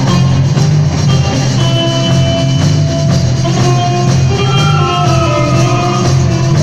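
Live rock and roll band playing: electric guitars over a drum kit, with held melody notes.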